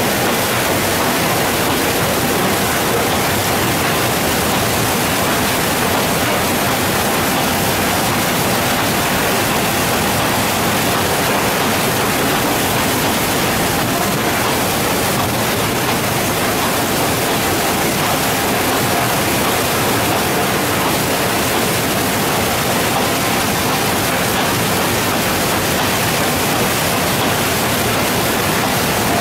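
Steady rush of wash water spraying from hoses and running across the riffled decks of gravity shaking tables and off their edges, an even, unbroken wash of noise.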